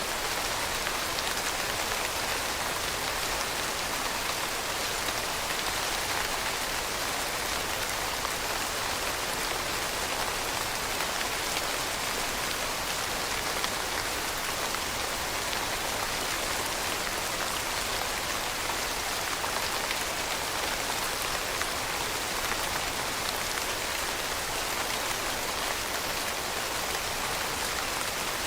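Steady rain falling, an even hiss of many drops with fine patter of individual drops.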